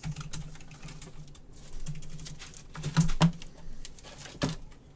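Trading cards in clear plastic holders being handled and set down on a stack: scattered light clicks and taps, the loudest a quick pair about three seconds in, over a faint low hum.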